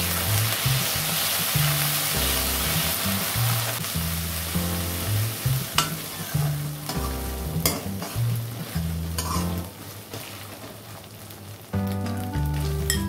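Sliced onions and green chillies sizzling in hot oil in an aluminium kadhai while a steel ladle stirs and scrapes them, with a few sharp clinks of the ladle against the pan. Background music with a bass line plays underneath.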